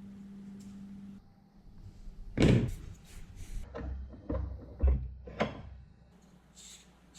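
A steady low hum that cuts off about a second in, followed by a run of sharp knocks and clunks of hard objects being handled or set down.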